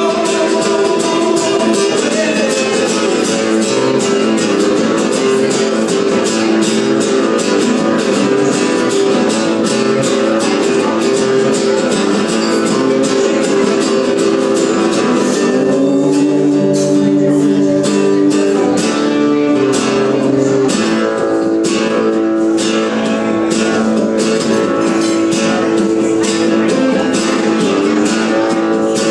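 Two acoustic guitars strummed together in a steady rhythm, playing an instrumental passage of a song. The chords shift lower for a few seconds past the middle, then return.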